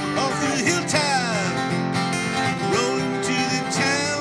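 Acoustic guitars strumming a country-style song, with a man singing the melody into a microphone.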